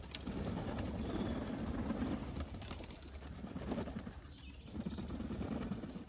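A flock of young racing pigeons cooing together, a low murmur that dips about four and a half seconds in.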